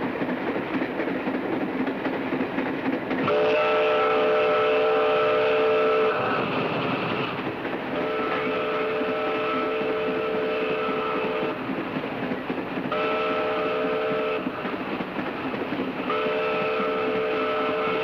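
Steam locomotive whistle blowing four times over the steady running noise of the moving train: long, long, short, long, the standard signal for a road crossing.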